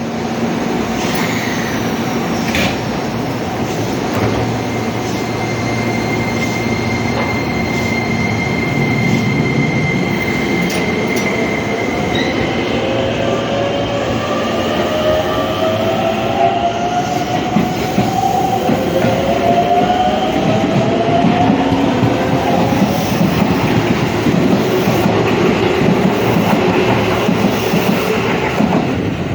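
An eight-car Keisei Main Line train running at the station platform, with wheel and rail noise. A steady high tone sounds early on. About halfway through, a whine made of several tones climbs in pitch, typical of the train's traction motors as it accelerates away.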